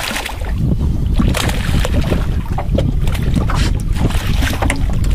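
A large surubí catfish thrashing at the surface beside a boat, water splashing again and again in quick irregular bursts, over a heavy rumble of wind on the microphone.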